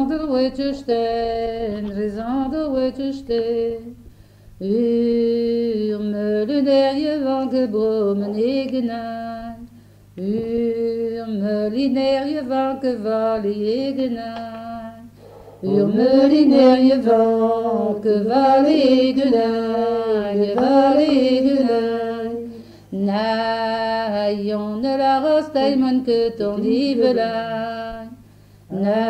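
Unaccompanied folk singing of a Breton song in the Vannetais dialect, in five phrases with short breath pauses between them. A steady low hum from the old tape recording runs underneath.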